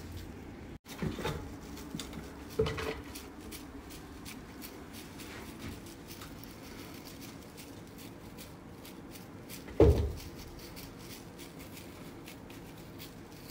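A few dull thumps and knocks, the loudest about ten seconds in, with light clicking and rustling between: cats playing on a wooden cat tower and its hanging hammock, batting at a feather wand toy.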